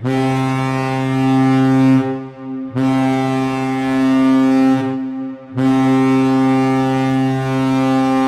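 Hockey arena goal horn sounding three long, steady blasts of about two seconds each, with short gaps between them, signalling a home-team goal.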